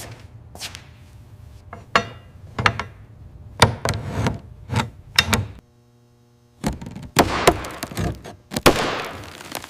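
An irregular series of sharp knocks and thuds, about a dozen strikes, with a drop to a faint hum for about a second a little past halfway.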